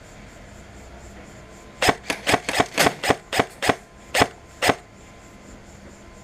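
Airsoft gun shots: about ten sharp, irregularly spaced shots in quick succession, starting about two seconds in and stopping near the middle.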